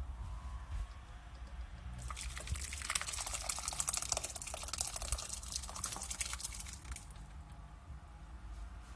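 Liquid pouring and splashing into a cooking pot, with fine crackling, starting about two seconds in and dying away around seven seconds.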